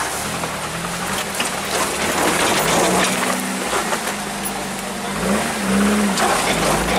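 Four-wheel-drive truck crawling over a rocky trail, heard from inside the cab: the engine runs steadily and revs up about five seconds in, over a constant crunch and rattle of tyres and body on rock.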